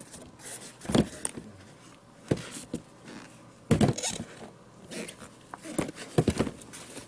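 Suede safety boots with rubber soles being handled and set down on a countertop: several knocks and scuffs, the loudest cluster about four seconds in.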